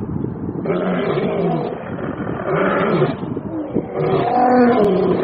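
A large animal roaring, several drawn-out calls each about a second long with short gaps between them.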